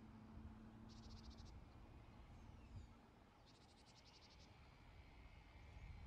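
Faint insect calls: two short trills of rapid even pulses, each about half a second to a second long, over a low rumble.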